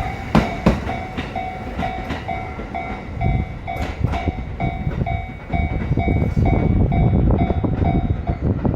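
E231-1000 series electric train passing over a level crossing: wheels clacking over the rail joints in pairs, with a rumble that is loudest in the second half. The crossing's warning bell rings about twice a second throughout and stops near the end.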